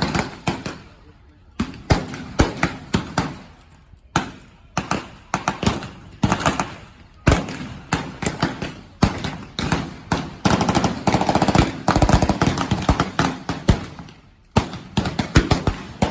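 Rifle gunfire from a staged reenactment shootout, presumably blanks: many sharp shots fired at irregular intervals, some in quick clusters.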